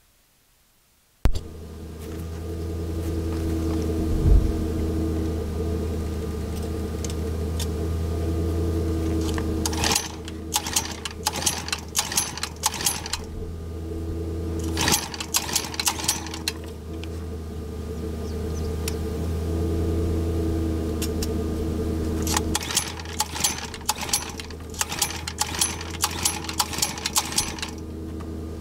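A Predator 420cc engine is pull-started by its recoil rope in three bouts of rapid clicking cranking, a third of the way in, around the middle, and through most of the last quarter. It never fires, because the ignition key was not switched on. A steady low mechanical hum runs underneath.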